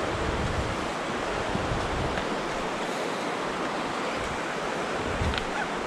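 Steady rush of the shallow Virgin River flowing. Low buffets of wind hit the microphone now and then.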